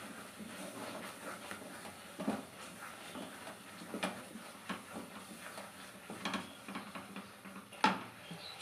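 Wooden spatula stirring and scraping a thick, simmering milk-and-khoa filling in a kadai, with irregular knocks and scrapes against the pan; the loudest comes near the end.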